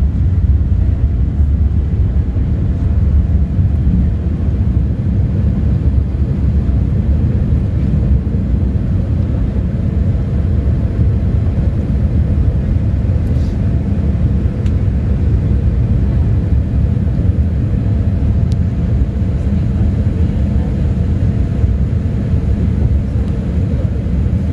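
Boeing 787-8's Rolls-Royce Trent 1000 engines at takeoff thrust, heard inside the cabin during takeoff and initial climb: a steady, loud low rumble with a few faint steady tones over it.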